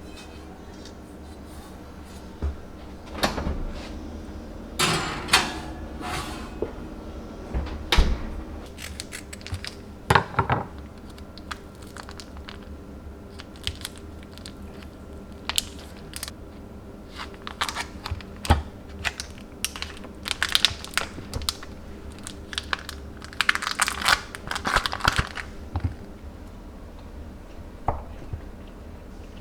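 Scattered light knocks and clicks of hands at work in a kitchen, with a few short rustling, crinkling stretches, loudest about five seconds in and again around twenty to twenty-five seconds in.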